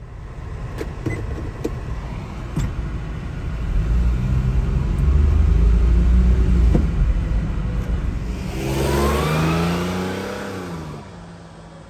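1999 Daihatsu Hijet kei truck's small three-cylinder engine pulling away and accelerating, a low rumble that grows louder; about eight seconds in the engine note climbs steeply in pitch, then falls away.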